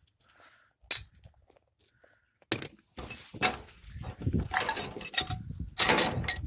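Pieces of a broken glass jar clinking and clattering as they are handled and dropped into a container: a few separate sharp clinks, then two denser bursts of clatter in the second half.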